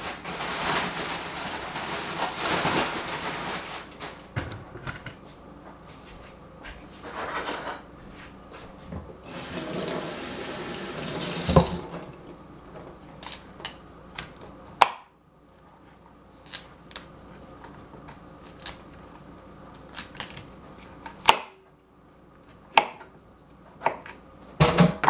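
Kitchen tap running in two stretches as broccoli is rinsed at the sink. Then come several sharp knocks and taps of things set down on the plastic cutting board, the last ones near the end.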